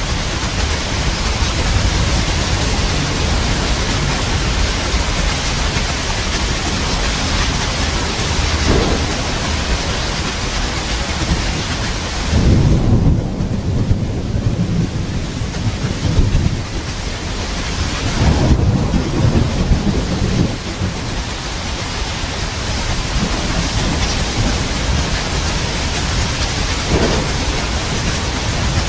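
Steady, heavy rain with rolling thunder. Deep rumbles swell up twice near the middle, with fainter ones before and after.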